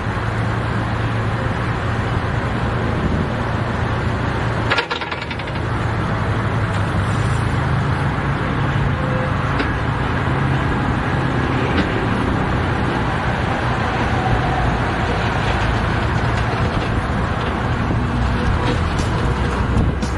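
Kubota KX040-4 mini-excavator's diesel engine running steadily while the hydraulics raise the boom and curl the bucket, with a brief dip in the sound about five seconds in.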